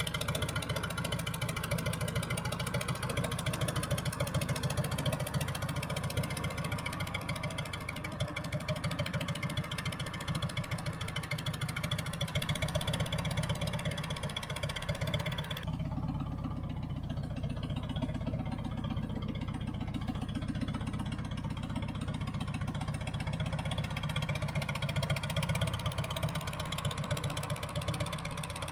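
John Deere 410 backhoe's engine running steadily. About halfway through, the sound changes abruptly, the higher hiss dropping away and leaving a lower, throbbing engine note.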